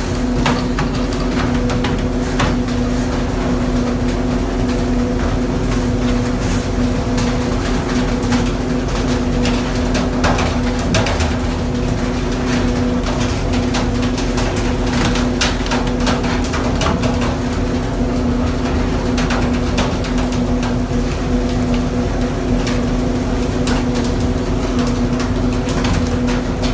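Fishing vessel's engine running with a steady drone and low rumble, with scattered short knocks and clicks over it.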